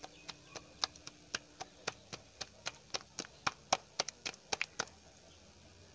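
Hands patting a cauliflower-stuffed paratha flat between the palms, soft slaps at about four a second.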